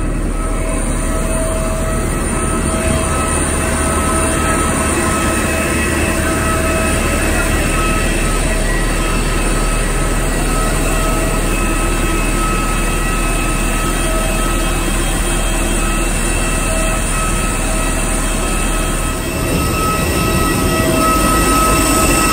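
Steady turbine whine and rumble of jet airliners standing on the apron, with several high whining tones over a dense roar, growing a little louder near the end.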